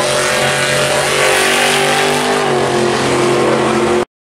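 Drag-racing pickup truck's engine running at full throttle down the strip, a loud, steady engine note. The sound cuts off suddenly near the end.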